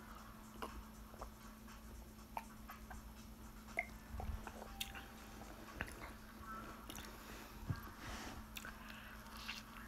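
Faint close-up mouth sounds of drinking soda from a glass mug: small clicks and swallows at irregular intervals, then chewing of burrito near the end. A faint steady hum runs underneath.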